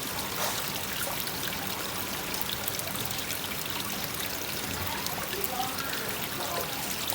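Koi pond waterfall splashing steadily into the pond, with raindrops ticking on the water.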